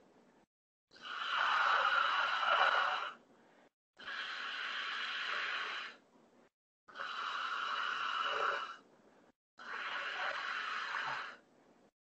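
A man's deep, open-mouthed breaths in a postural breathing exercise: about four long, airy breaths of roughly two seconds each, each cut off sharply, with short silent gaps between them.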